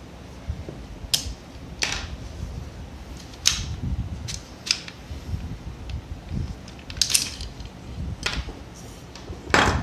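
Metal parts of a blank pistol being handled during disassembly: a series of sharp, irregular clicks and clacks as the slide and internal parts are worked and set down, over low handling rumble.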